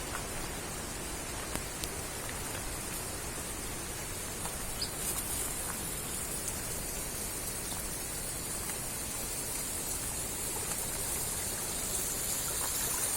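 Stream water running and splashing over stone steps, a steady rushing hiss that grows a little louder near the end.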